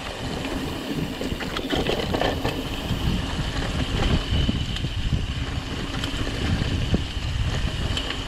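Mountain bike rolling fast down a dirt-and-rock singletrack: wind buffets the microphone and the tyres rumble over the trail, with scattered knocks and rattles from the bike as it goes over bumps.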